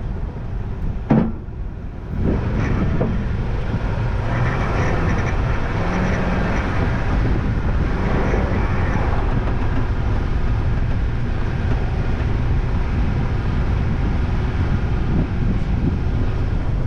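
A vehicle on the move: a steady rumble of engine and road noise, with one sharp knock about a second in.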